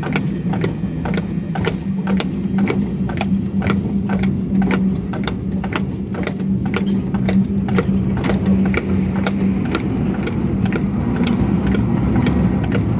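Horse-drawn tram rolling along its rails behind a walking draught horse: the horse's shod hooves clop on the paving at about three beats a second. A steady low hum runs under the hoofbeats and drops away about ten seconds in.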